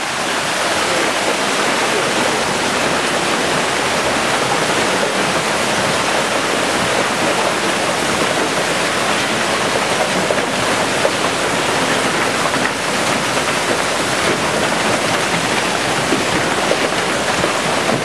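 Heavy hailstorm: ice-cube-sized hailstones and rain pouring down, a loud, dense, unbroken wash of noise that holds steady throughout.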